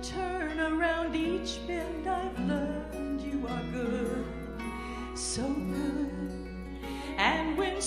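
A woman singing a slow worship song live, with instrumental accompaniment.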